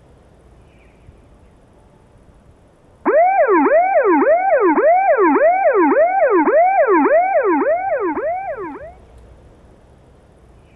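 A siren cycling quickly in pitch, each cycle a sharp rise and a slower fall, about two a second. It comes in suddenly about three seconds in and fades away about six seconds later.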